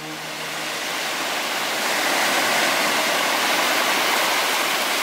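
Surf washing up over a sandy beach: a steady rush of water that swells about a second in and holds.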